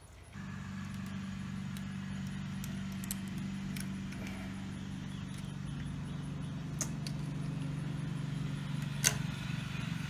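A steady low motor hum starts suddenly about half a second in and keeps running, with a few sharp clicks over it, the loudest about nine seconds in.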